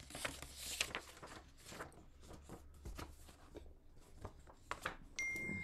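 Faint rustling and handling of paper sheets, with scattered small clicks and taps. Near the end a steady high electronic tone begins and holds.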